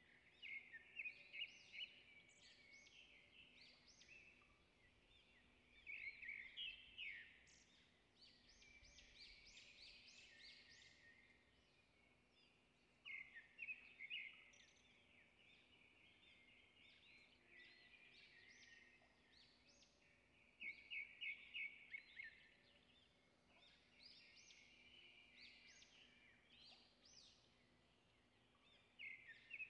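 Faint bird song: short phrases of quick, high chirping notes repeated every several seconds, over a low steady hum.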